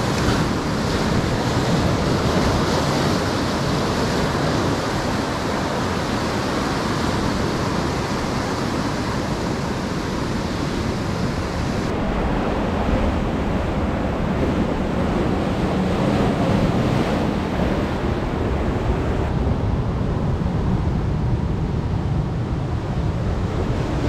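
Ocean surf breaking and washing over a rocky reef shore, with wind rumbling on the microphone. The sound turns duller about halfway through and again near the end.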